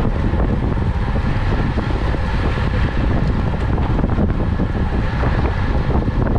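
Wind buffeting the microphone of a camera on a bicycle ridden at race speed: a loud, steady rumble with a few faint clicks.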